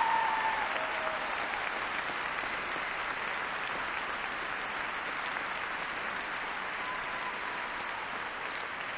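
Large arena audience applauding steadily at the end of a skating routine, the last held note of the music fading out about half a second in.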